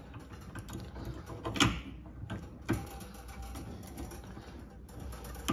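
Metal clicks and clinks from a brake-line flaring tool clamped in a bench vise as it is handled and set up: a few sharp clicks, the loudest about a second and a half in.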